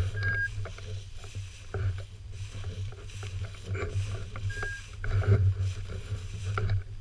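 Dry tall grass swishing and brushing against a hunter walking through it, with a steady low rumble on the body-worn microphone. Two short high electronic beeps sound about four seconds apart.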